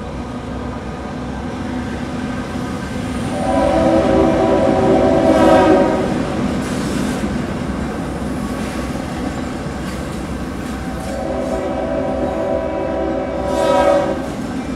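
Diesel locomotive air horn sounding two long chord blasts for a grade crossing, the first about three seconds in and the second, longer one from about eleven seconds in. The horn is a Leslie RS-3L three-chime. A steady low rumble of the train and the car runs underneath, heard from inside a moving car.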